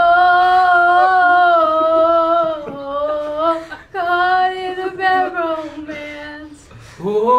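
One voice singing unaccompanied, holding long high notes in two phrases with a short break about three seconds in, and stopping near the end.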